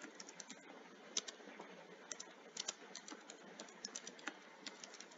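Computer keyboard typing: a run of faint, irregular key clicks as a line of text is typed.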